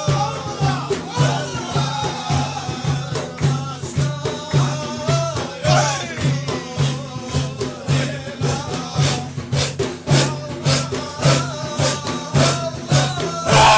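Sufi Naqshbandi zikr: a group of voices chanting in a low, fast, steady pulse while a lead voice sings a wavering melody above it, with sharp rattling percussion strokes running through the rhythm.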